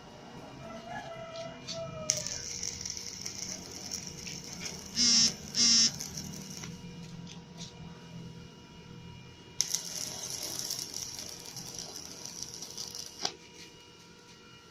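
Stick welding with a Rhino 120 A inverter welder at about 60 A and a 2.0 mm electrode: the arc crackles and hisses in two runs of a few seconds, with a break between. Two short, loud buzzy bursts come about five seconds in, and faint steady tones run underneath.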